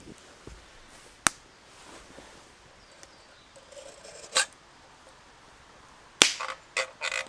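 Sharp wooden cracks, five in all and irregularly spaced, the last three coming close together near the end.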